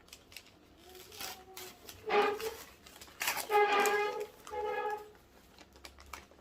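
A small child's high-pitched vocalizing: a few wordless, sung-like calls, the longest and loudest about three to four seconds in. Light rustling and clicks from plant packaging sound underneath.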